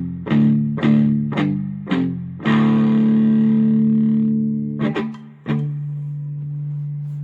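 Electric guitar played through a JOYO Tai Chi R-02 low-gain overdrive pedal into a Fender amp, with a clean, lightly driven tone. It plays a run of short chord stabs, then a long held chord, two quick hits, and a final chord left ringing.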